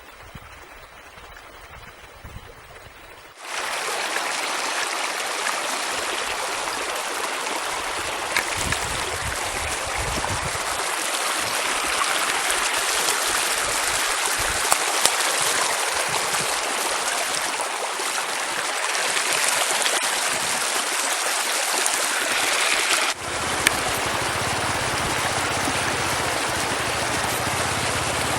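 Steady rushing of flowing stream water, starting abruptly about three seconds in. Near the end it breaks off for an instant and comes back with a low rumble underneath.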